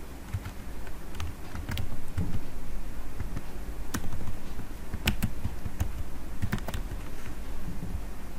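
Computer keyboard being typed on: irregular single keystroke clicks, a few sharper ones in the middle, over a low steady hum.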